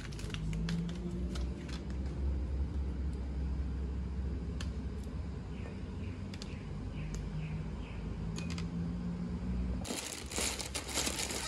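Groceries being set on a white plastic shelf cart: light clicks and knocks of bottles and containers on the plastic, over a steady low hum. Near the end, plastic food packaging crinkles as it is handled.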